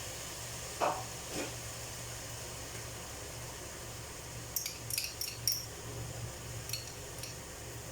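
A metal utensil clinking against a frying pan several times as chicken in soy sauce is stirred, over a faint steady hiss and a low hum. Two softer knocks come about a second in.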